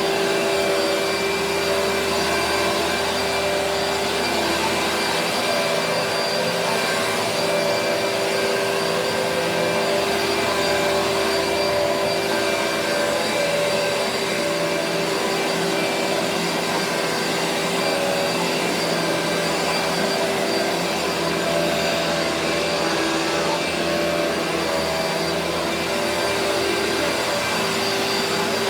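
Vacuum cleaner running steadily throughout, a constant motor whine and rush of air whose pitch wavers slightly now and then.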